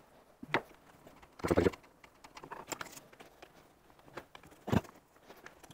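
Hands handling wiring and connectors at a motorcycle's handlebar: a few sharp clicks, a louder rustle and clatter about one and a half seconds in, and another click later on.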